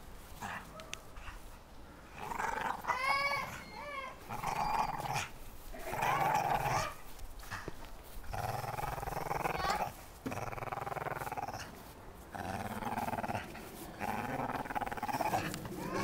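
Dog growling while it tugs and shakes a rope toy held in its jaws, in long bouts of one to two seconds with short breaks, starting about two seconds in.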